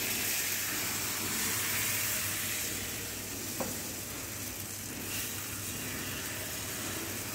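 Thin crêpe batter sizzling in hot butter in a frying pan: a steady hiss that eases a little about three seconds in.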